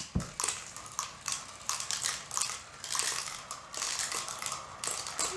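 Several marbles rolling and clattering down a plastic Quercetti marble run, a fast, irregular run of small clicks and taps as they race through the track pieces, with a low thump just after the start.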